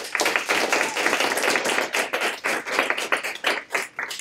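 Small audience applauding, many separate hand claps together, starting suddenly and thinning out near the end.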